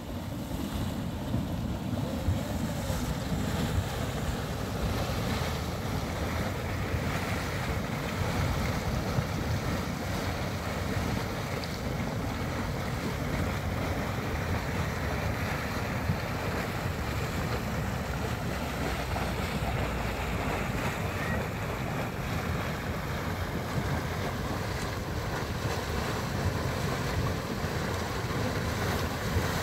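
Wind buffeting the microphone over a steady rushing hiss from the steaming mud pool of Mud Volcano, a Yellowstone mud pot, with no sharp events.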